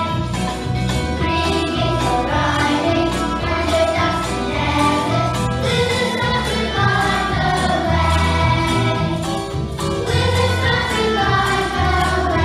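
A group of young children singing a nativity song together over a recorded backing track with a steady beat.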